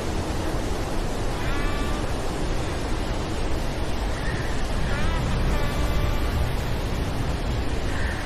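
Storm sound-effect ambience: a steady rushing noise over a low hum. A few short, faint pitched calls rise above it, around two seconds in and again from about five to six and a half seconds.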